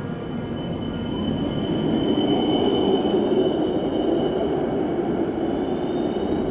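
Helsinki city tram going by on the street rails: a rumble that swells about a second in and stays up, with a thin, steady high-pitched tone riding over it.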